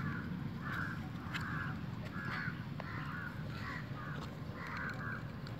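A crow cawing repeatedly, about one call a second, over a steady low background rumble.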